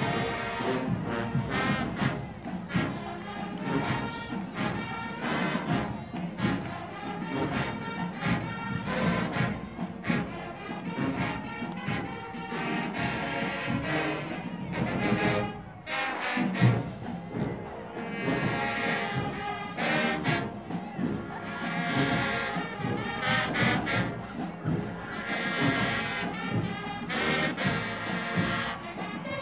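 Marching band playing: brass section and drumline together, with sharp drum strokes throughout. There is a short break in the music just past halfway, then a loud hit as it comes back in.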